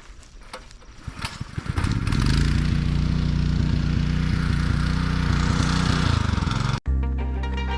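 A pressure washer starts up with some clatter and then runs steadily, its motor drone mixed with the hiss of the spray, until it cuts off abruptly near the end.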